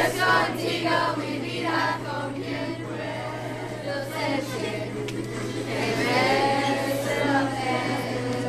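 A group of eighth-grade students singing a Spanish-language song together as a class choir.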